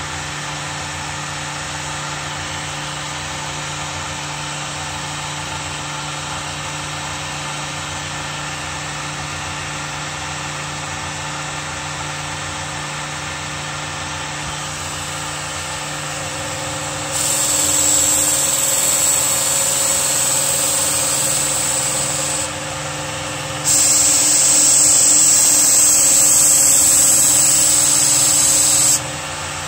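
Work Sharp Ken Onion Edition belt sharpener's motor running with a steady hum. Over a second or so past the middle the ESEE-5 knife blade is pressed to the moving abrasive belt twice, each pass a loud hiss of grinding lasting about five seconds.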